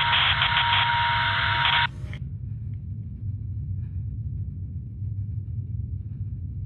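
A burst of radio static, about two seconds long, with a steady tone running through it, cutting off suddenly. A low steady rumble runs underneath throughout.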